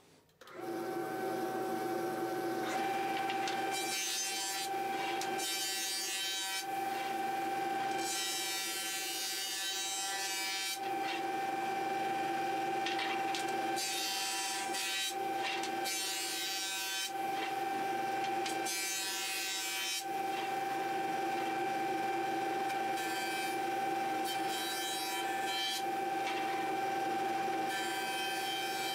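Jointer running with a steady whine while a wooden board is fed over its cutterhead in several passes, each pass a burst of rushing planing noise over the motor's tone.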